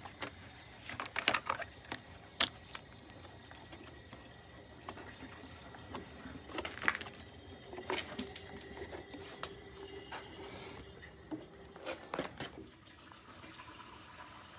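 Coolant being poured from plastic gallon jugs into a bus's cooling system, liquid running in steadily, with scattered clicks and knocks from handling the plastic jugs.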